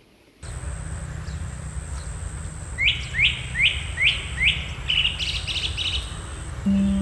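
A songbird calling: five quick rising whistled notes about a third of a second apart, then a short fast chatter, over a steady low outdoor rumble and a thin steady high whine. Soft plucked-string background music comes in near the end.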